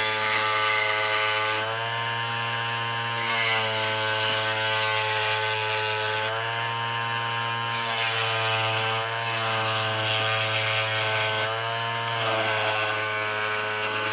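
Dremel rotary tool cutting through motorcycle fairing plastic: a steady high motor whine whose pitch sags briefly every few seconds as the cutter bites under load.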